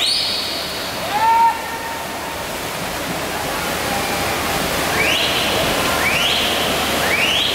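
Steady wash of splashing swimmers and crowd noise echoing in an indoor pool hall. Spectators let out shrill rising cheers, one at the start and three about a second apart near the end.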